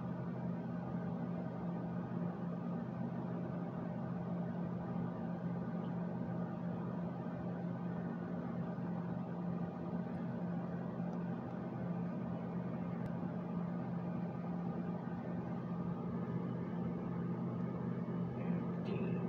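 A steady machine hum indoors, holding one low droning tone with fainter overtones above it and no change in level throughout.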